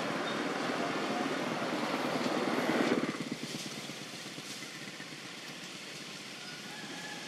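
A motor vehicle's engine running close by, getting louder until about three seconds in, then dropping off quickly and carrying on more faintly.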